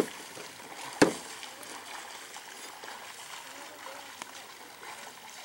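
Water washing steadily along the hull of a small moving boat, with one sharp knock about a second in.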